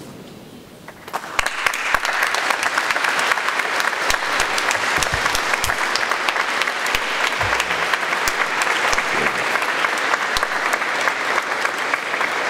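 Church congregation applauding, a dense patter of many hands that starts about a second in and keeps on at an even level.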